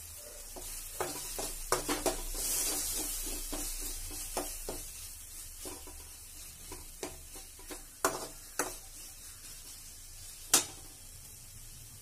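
Stainless steel spoon stirring and scraping a tomato-onion masala in an aluminium kadai. It clinks and knocks irregularly against the metal pan, with a faint sizzle underneath and one sharper knock near the end.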